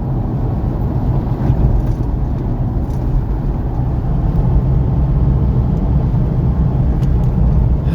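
Steady rumble of a car driving on a rain-soaked road, heard from inside the cabin: engine and tyre noise with no distinct events.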